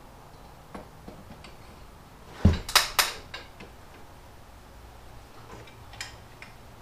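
Clicks and knocks of a pin being worked through the header bracket and the end of a garage door opener rail: a few light ticks, then three sharp knocks in quick succession about two and a half seconds in.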